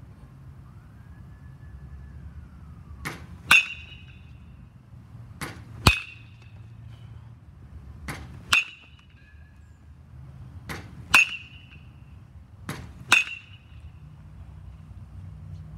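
Five batting-practice hits about every two and a half seconds: each a sharp ringing ping of a metal baseball bat striking a pitched ball, with a softer click about half a second before it.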